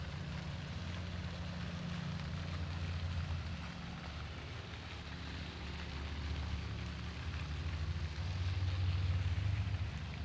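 Wind rumbling on the microphone over a steady hiss, swelling a little near the end.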